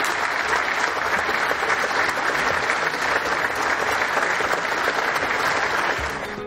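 A chamber full of people applauding: dense, steady clapping that eases off near the end.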